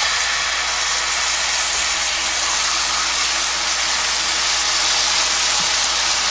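Syrup sizzling with a steady hiss on a hot, thin frying pan of roasted nuts and small anchovies; the burner has just been turned off, so the pan is on its remaining heat.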